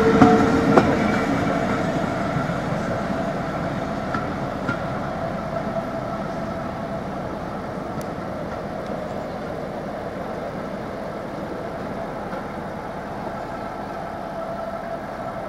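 Passenger train of coaches rolling past close by and pulling away, its running sound fading steadily as it recedes.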